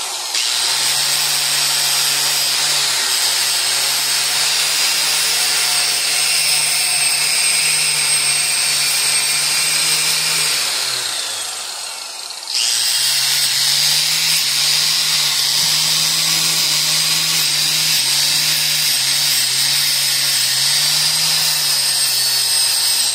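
Angle grinder fitted with a wire brush wheel, running against a broken steel ATV frame bracket to clean it back to bare metal for welding. It runs steadily, winds down with a falling pitch about ten seconds in, and starts up again about two seconds later.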